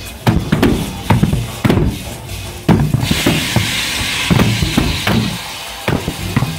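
A gas-fired shockwave-cannon pipe organ playing a rhythmic run of sharp, deep bangs, about two to three a second, each explosion ringing low in its metal pipe. A rushing hiss joins the bangs from about halfway through until near the end.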